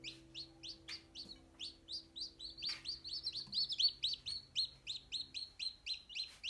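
Newly hatched chicks peeping: a steady run of short, high peeps, about four a second, several chicks overlapping.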